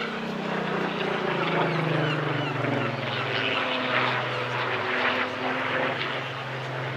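Supermarine Spitfire PR XIX's Rolls-Royce Griffon V12 piston engine running in flight. Its note drops in pitch over the first few seconds, then holds steady.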